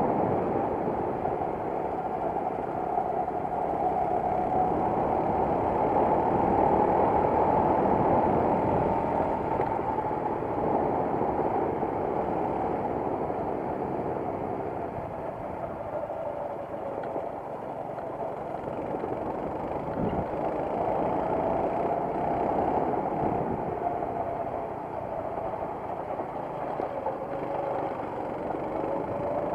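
Racing kart engine heard from on board the kart at race pace, its pitch rising and falling as the throttle is opened and lifted.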